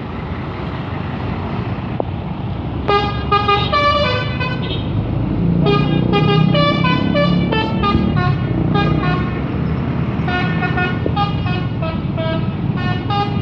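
Bus telolet horn, a multi-tone musical air horn, playing stepping melodic notes in about four bursts, over a bus engine running.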